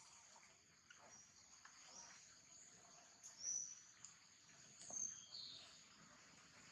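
Faint high-pitched bird chirps, a few short whistles about three and five seconds in, one gliding downward, over a steady high insect hum.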